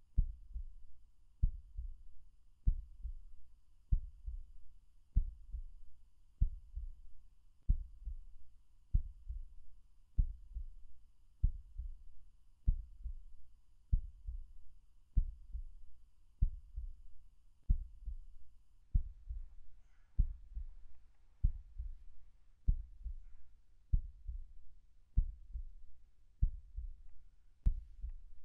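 Slow heartbeat sound effect: a low double thump, lub-dub, repeating evenly about every one and a quarter seconds.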